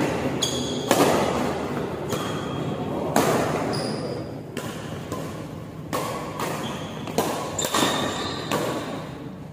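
Badminton rackets striking the shuttlecock in a fast doubles rally: about a dozen sharp hits, one every half second to a second, some with a brief ringing ping from the strings, echoing in the hall.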